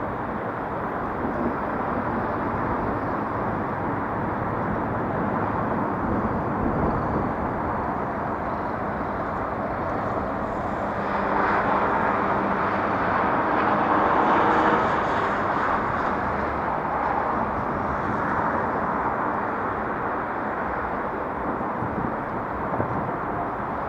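Steady outdoor rumble of vehicle traffic, with a passing engine swelling and fading between about eleven and sixteen seconds in.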